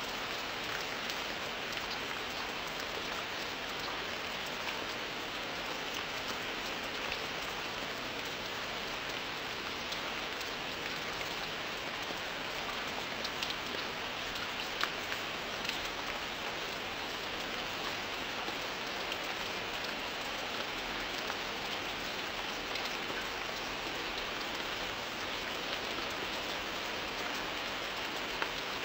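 Steady rain falling on a surface: an even hiss with scattered sharper drop impacts.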